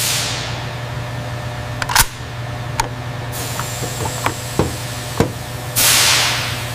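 Sharp metallic clicks from handling an AR-15-style rifle: one loud click about two seconds in, then several lighter ones, over a steady low hum. A rushing hiss swells near the end.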